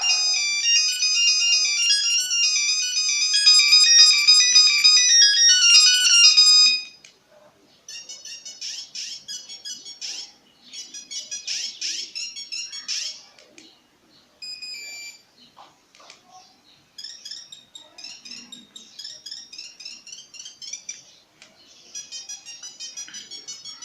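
Nokia 1100 mobile phone ringtones playing one after another as beeping electronic melodies. A loud tune cuts off about seven seconds in, then a run of quieter, shorter tunes follows with brief gaps between them.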